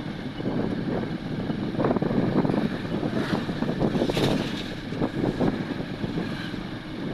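Godrej top-load fully automatic washing machine running a wash, with water churning and sloshing in the drum as a continuous, uneven rumble.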